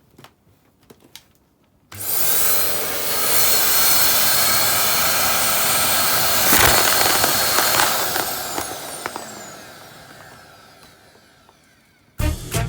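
TWINBIRD TC-E13 vacuum cleaner switched on with a sudden start, running with a steady suction rush and motor whine. About two-thirds of the way in there is a sharp clatter as it sucks something up. It is then switched off, and the whine falls in pitch and fades as the motor winds down.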